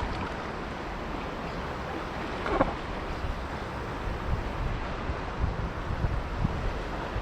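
Steady rushing of a high-flowing river, with wind buffeting the microphone in gusts. A short, sharper sound stands out about two and a half seconds in.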